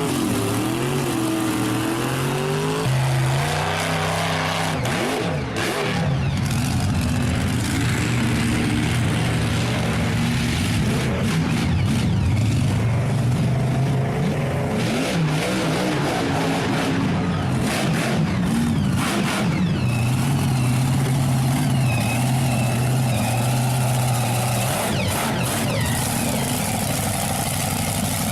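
A large monster truck engine revving up and down repeatedly, holding a steady pitch for a few seconds in the second half.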